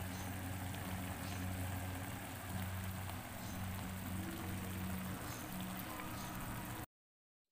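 Coconut-milk sauce with mussels simmering in a pan, a steady fizzing bubble with faint pops, over a low steady hum; it cuts off abruptly shortly before the end.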